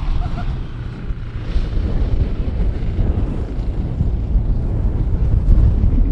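Strong wind buffeting the microphone: a loud, gusty low rumble.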